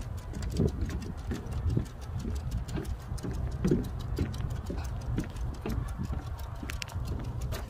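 Footsteps on a wooden-plank boardwalk, an even walking pace of about two steps a second, over a steady low rumble.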